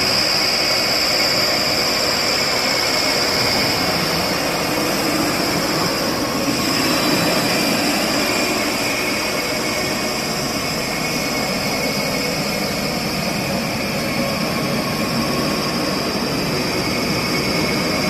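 MST backhoe loader's diesel engine running steadily in a snowstorm, a continuous roar with a steady hiss over it.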